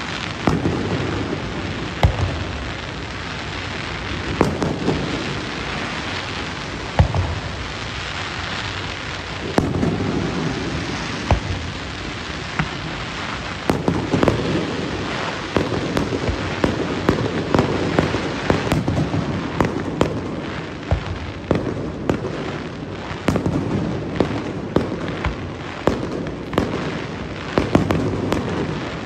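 Fireworks display: aerial shells bursting with sharp bangs every second or two, coming faster in the second half, over a steady crackling hiss.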